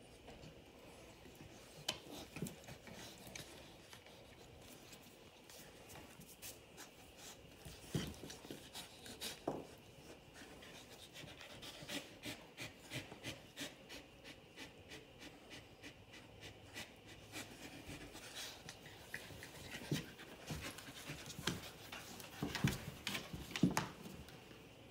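Two Keeshonds play-fighting on a tile floor: panting and mouthing with scattered short clicks and scuffles, busiest and loudest near the end.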